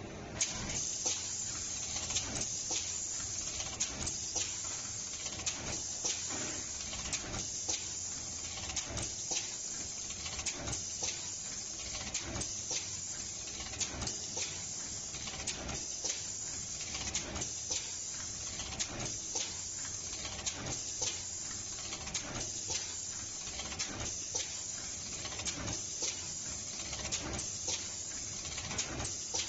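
NeoDen K1830 eight-head pick-and-place machine running a placement cycle: a steady high hiss with frequent sharp clicks, about one or two a second, as the head picks and places components. The sound starts about half a second in.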